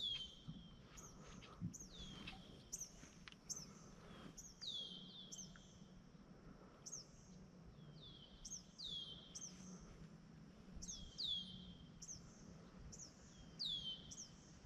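A small songbird calling over and over: faint, short high chirps that each slide down in pitch, about two a second and often in quick pairs.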